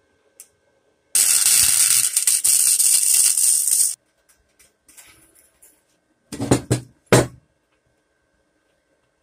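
MIG welder arc crackling steadily for about three seconds as a weld is run on a thin sheet-metal box. A few sharp knocks follow a couple of seconds later.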